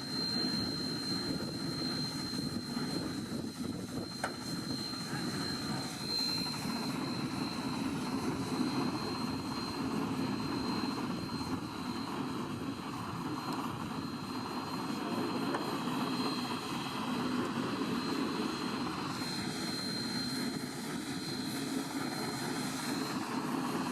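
Steam-powered railroad derrick working, a steady running noise with a constant high whine over it; a second, lower whine joins for a few seconds near the end.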